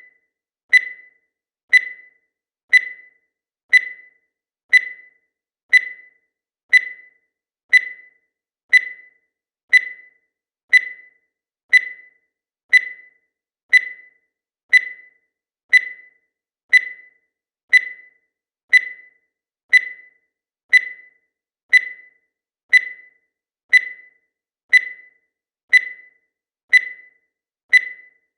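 Digital timer beeping once every second as it counts off the seconds: a short, high electronic beep that fades quickly, repeated at a steady pace.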